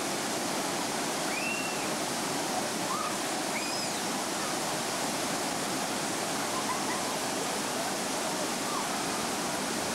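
Waterfall cascading over rock ledges into a pool: a steady, even rush of water.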